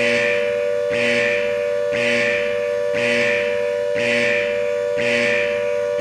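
Timer's time-up alert sounding: a steady held tone with a brighter pulse repeating about once a second.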